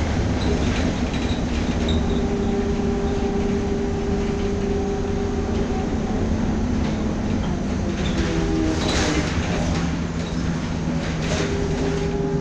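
Inside an Ikarus 415T trolleybus under way at steady speed: the electric traction drive hums steadily over tyre and road rumble. The body and fittings rattle, with a couple of knocks or clatters from bumps, one about nine seconds in and another about two seconds later.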